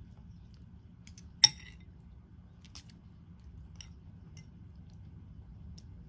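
Kitchenware clinking: one sharp ringing clink about a second and a half in, like a utensil striking a cup or dish, then a second smaller clink and a few light taps.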